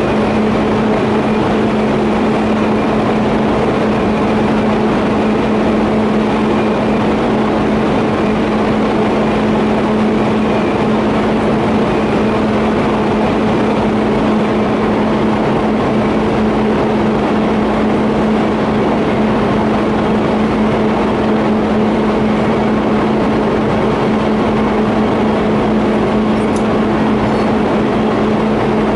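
TIG welding arc buzzing steadily while welding a 50A pipe flange and elbow: a constant hiss with a steady low hum, unbroken throughout.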